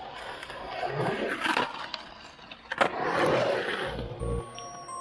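Skateboard wheels rolling on concrete, swelling twice as the board passes, with a sharp clack of the board about three seconds in. Music with steady electronic tones comes in near the end.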